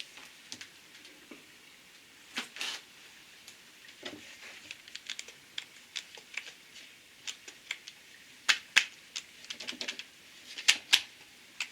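Scattered sharp clicks and taps of a dead Black & Decker jigsaw being handled, with two louder pairs of clicks near the end. No motor runs: the saw does not start.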